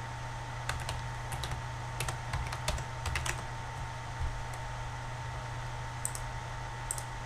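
Typing on a computer keyboard: a quick run of keystrokes in the first half, then a few single clicks near the end, over a steady low hum.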